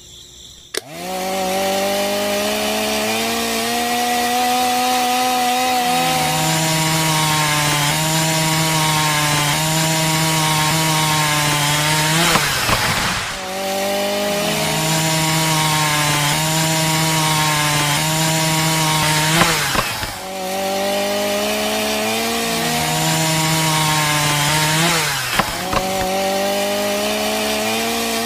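Small electric toy motor spinning a miniature circular saw disc, a steady buzzing whine. Its pitch steps lower at times and twice sags almost to a stop before picking back up, as the disc is pressed against a wooden stick.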